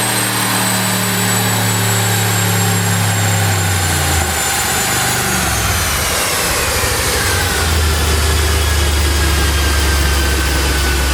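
BMW F10 550i's twin-turbo 4.4-litre V8 running at a steady raised speed. About four seconds in, the engine note drops and wavers, then settles to a lower steady note. From about five seconds in, a high whine falls steadily in pitch.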